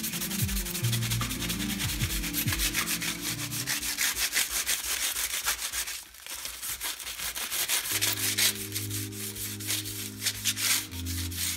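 Crumpled aluminium foil wetted with Diet Coke scrubbed rapidly back and forth along a chrome motorcycle fork stanchion, a dense scratchy rubbing that lifts rust and grime off the chrome. The scrubbing stops briefly about halfway through, then starts again.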